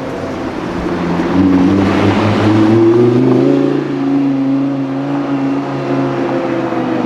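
A car engine accelerating: its pitch climbs from about a second in, is loudest a couple of seconds later, then settles into a steady drone.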